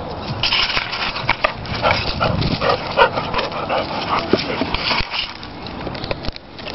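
Brittany spaniel making a quick series of short whines and yelps in the first half, then quieter scuffling and rustling in the grass.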